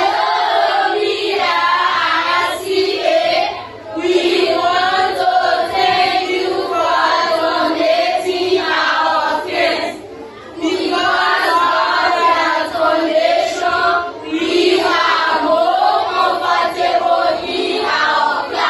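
A group of children singing together in four phrases, with short pauses between them.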